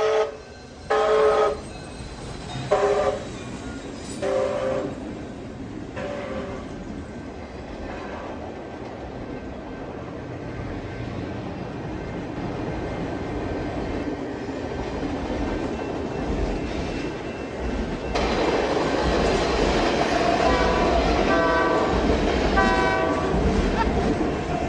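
Steam train whistle giving about four short blasts in the first six seconds, then the steady rumble of an oncoming train growing louder. The rumble jumps up about eighteen seconds in, with a quick series of short whistle toots near the end.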